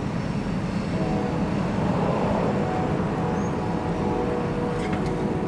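Low steady rumble and engine drone of a freight train that has just cleared the crossing, with a few light clicks near the end.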